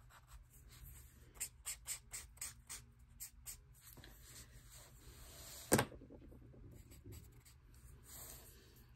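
Brush-tip alcohol marker scratching across sketchbook paper in quick short strokes, then a longer stroke, faintly. A single sharp click comes a little past halfway.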